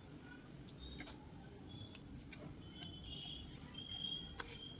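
Faint scattered clicks and taps of ground moong dal batter being scraped out of a steel mixer-grinder jar into a steel bowl, over a low background hum, with a few short high tones about three seconds in.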